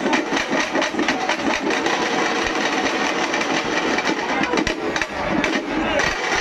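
A group of drummers beating two-headed barrel drums with sticks in a fast, dense, unbroken rhythm.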